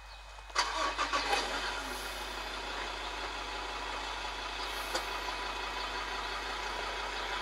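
Jeep engine starting about half a second in with a short rattly burst, then running steadily. It is heard thin, played back through a laptop speaker.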